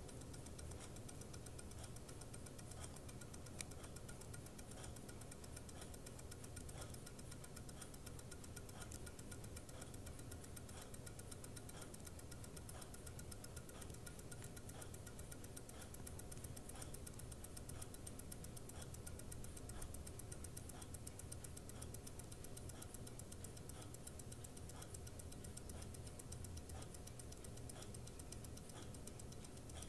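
Mechanical wristwatch with a PTS 3351 one-minute center tourbillon movement ticking: the quiet, rapid, even beat of its escapement.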